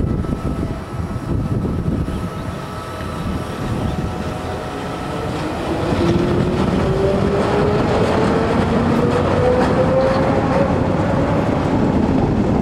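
Tyne and Wear Metro battery locomotives hauling a Metrocar past at low speed: a steady rumble of wheels on track that grows louder about halfway through as the train comes close. A whine rises steadily in pitch over the second half as the train gathers speed.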